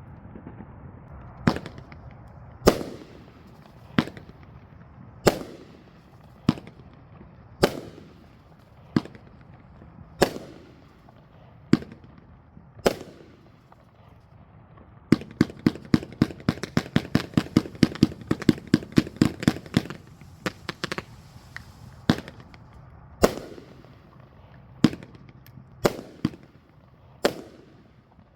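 A 500g consumer firework cake (a zipper-style fan cake) firing: single shots about a second apart, then a fast rapid-fire string of shots for several seconds about halfway through, then single shots again.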